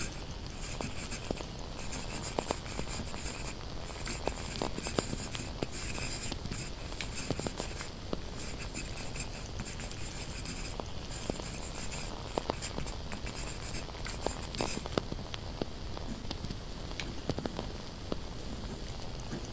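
Pen scratching on paper in quick strokes over a steady hiss, with scattered small crackles from a burning candle. The writing stops about three-quarters of the way through, leaving the hiss and crackles.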